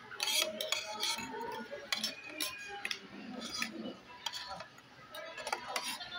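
Cutlery and dishes clinking in many short, irregular clicks during a meal, with indistinct voices underneath.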